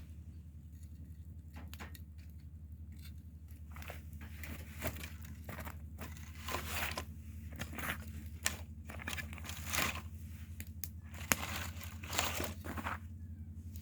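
Irregular crackling and crunching of dry material, thickening after about four seconds, over a steady low hum.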